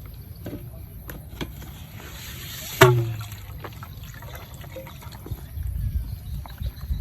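Water sounds with one sharp splash-like hit a little under three seconds in, preceded by a short rising rush, then low rumbling toward the end.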